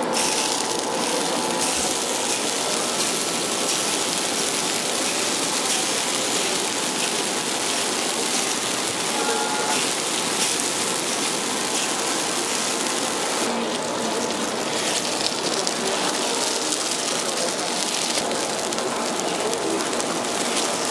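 Steady sizzling hiss from a chrysanthemum-bread (pulppang) grill: batter cooking in hot molds over the flame.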